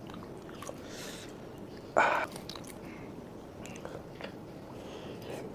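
Close-up eating sounds of a person chewing steamed apple-snail meat, with small wet clicks and one brief, louder mouth sound about two seconds in.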